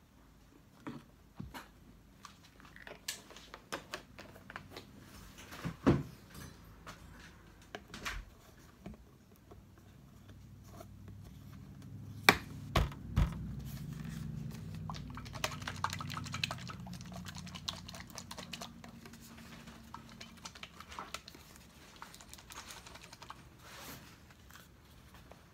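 Scattered clicks, knocks and crinkles from plastic paint bottles and cups being handled and set down, with two sharp knocks about six and twelve seconds in. A faint low hum runs through the middle.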